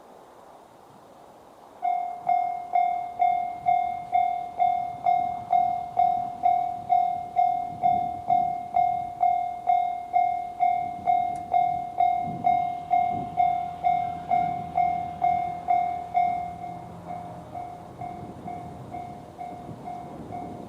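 JR standard electronic level-crossing alarm starting up about two seconds in: a repeating ding just under twice a second, turning quieter near the end. Underneath, the low rumble of a KiHa 110-series diesel railcar grows as it approaches.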